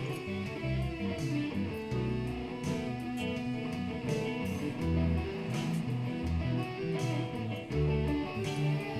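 Background music led by guitar, with a moving bass line and light percussion ticks.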